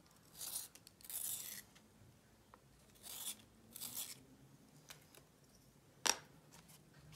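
A makeup colour stick rubbed across paper in four short scratchy strokes, shading the page, then one sharp click about six seconds in.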